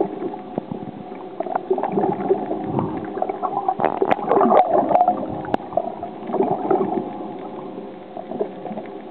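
Underwater water noise picked up by a submerged camera: gurgling, bubbly sloshing with scattered sharp clicks over a steady low hum, busiest about four to six seconds in.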